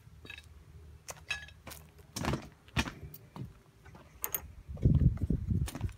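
Handling noise from scooter parts being picked up and sorted: scattered clicks and light metal clinks, with a cluster of low knocks about five seconds in.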